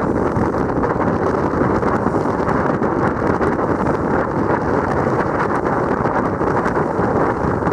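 Steady rush of wind buffeting the microphone and water churning past the hull of a small boat under way at speed.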